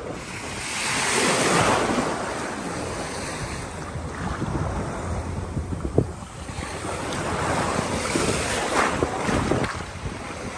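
Small Gulf of Mexico waves washing in around the microphone in shallow surf, swelling twice, with a steady low wind rumble on the microphone. A brief sharp tap about halfway through.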